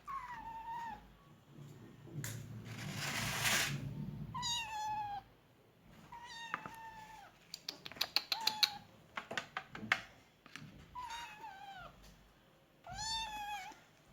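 Persian kittens mewing about six times, short high calls that fall in pitch, with a rustle early on and a quick run of sharp clicks in the middle.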